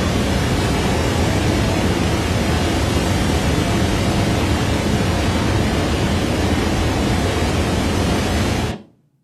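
Steady, loud rushing roar of a rocket-launch sound effect played back, cutting off abruptly near the end.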